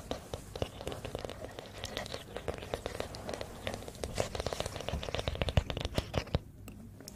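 Close-miked crackling and scratching: a dense run of tiny clicks and crinkles, an ASMR trigger sound, thinning out shortly before the end.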